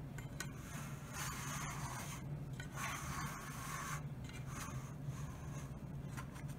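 Knife blade scraping around the inside edge of a metal cake pan in several short strokes, loosening the baked cake from the pan's side.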